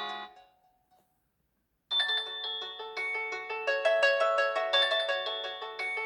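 Realme C25s ringtones: one melody fades out within the first half second, then after about a second and a half of silence a new ringtone melody of quick, clear notes starts abruptly, about two seconds in.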